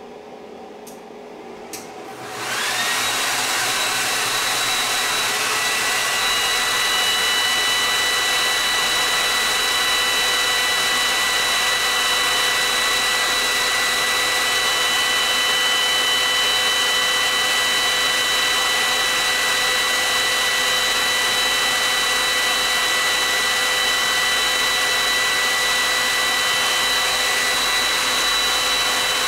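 Two clicks, then about two seconds in a bank of heat guns and a hair dryer start together and run with a loud, steady rush of blowing air and a steady high whine. They are the load drawing about 430 amps from a 12-volt lithium battery through inverters.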